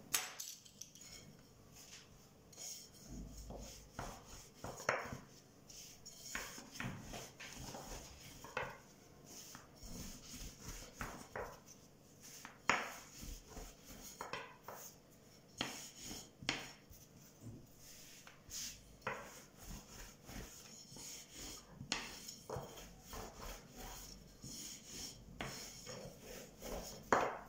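A long thin wooden rolling pin rolling out a round of dough on a tabletop, with irregular light knocks and rubbing as the pin goes back and forth.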